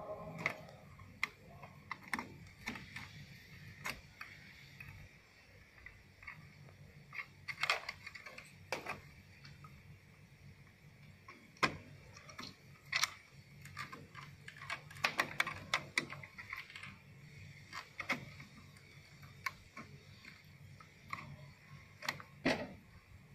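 Scattered sharp clicks and light rattles of plastic wire connectors and cable bundles being handled on a TV main board, with short flurries of quick clicks now and then.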